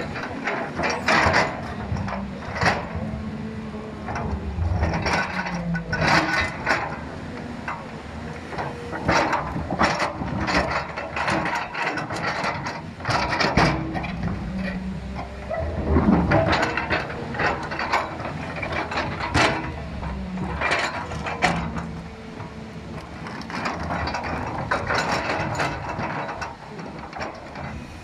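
JCB excavator at work: its diesel engine running under the frequent irregular clatter, knocks and scrapes of the bucket and linkage working the ground.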